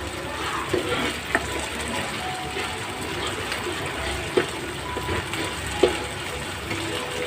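Ginger-garlic and onion paste frying in hot oil in a pan, a steady sizzle, with three sharp knocks spread through it.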